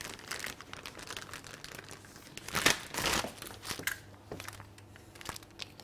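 Plastic piping bag crinkling and rustling as it is handled, with scattered small clicks and a louder rustle about two and a half seconds in.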